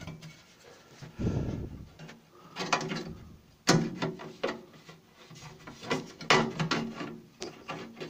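Sheet-metal motor access cover on the underside of a microwave being handled and fitted against the casing: scraping and rubbing of metal with scattered sharp clicks and knocks, the loudest a little before four seconds in and again past six seconds.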